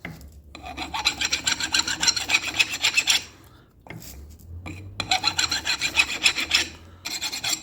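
Hand file rasping in quick back-and-forth strokes on the steel end of a CV-joint drive shaft, in two spells with a short pause between. The file is taking down the edge that flared when the old joint was knocked off, so the new joint will slide on.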